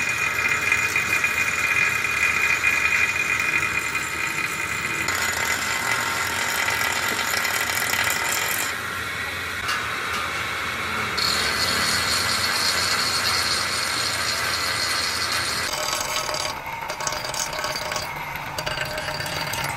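Angle grinder with an abrasive disc spinning and grinding the face of an engine block casting: a steady high whine with a grinding rasp. The sound changes abruptly a few times and is a little quieter near the end.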